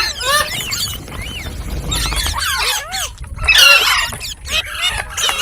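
Pet green parrot chirping and squawking, a rapid string of short calls that rise and fall in pitch, thickest about three and a half seconds in.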